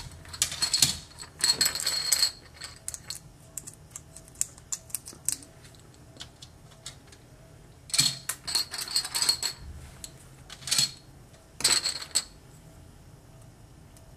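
Plastic Connect 4 discs clattering as they are dropped into the upright grid and handled on the table. The clicks and rattles come in short bursts: in the first two seconds, around eight to nine seconds in, and twice near twelve seconds.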